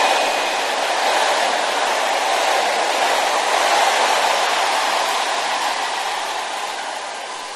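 Large congregation shouting and praying aloud all at once, a dense, steady crowd roar that dies away near the end.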